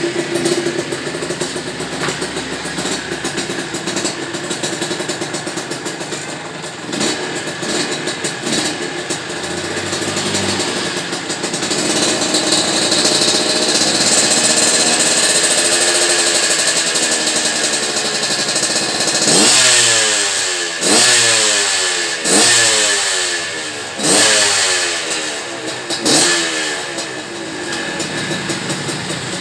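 Suzuki TS125's two-stroke single-cylinder engine running through its exhaust: idling, then held at higher revs for several seconds around the middle, then blipped sharply five times before settling back to idle. The sound is loud and ringing.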